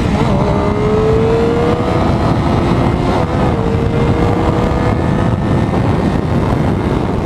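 Triumph Daytona 675R's inline-three engine pulling hard under acceleration, revving up past the 6,000 RPM where its shift lights are set. The pitch climbs slowly, dips briefly about three seconds in as the rider shifts, then climbs again over heavy wind rush.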